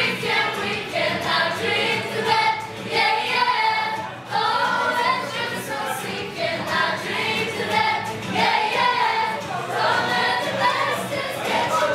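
Many young voices singing a song together, with a rhythmic beat.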